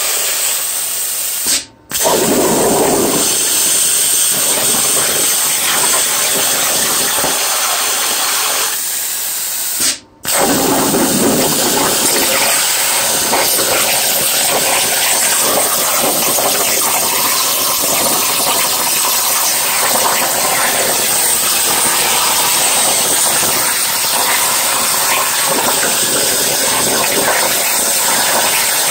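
Plasma torch of a Langmuir Crossfire CNC table cutting 18-gauge sheet steel: a steady, loud hissing rush of the arc and air. The sound drops out abruptly for a moment twice, about 2 and 10 seconds in.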